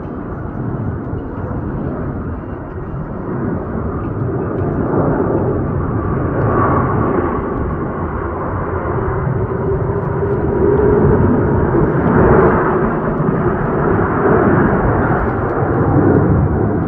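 Jet airliner on landing approach: a steady rushing engine noise that grows louder, with a wavering whine running through it.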